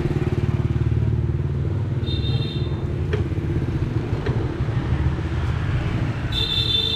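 Motorbike engine running close to the microphone, a steady low rumble with a fast even pulse. A short high-pitched tone sounds about two seconds in and again near the end.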